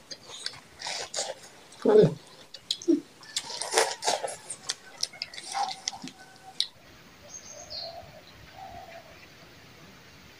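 Close-miked eating: crisp crunching bites and chewing, with many sharp clicks, the loudest burst about two seconds in. Near seven seconds the eating stops and only a faint background remains, with a few short chirps.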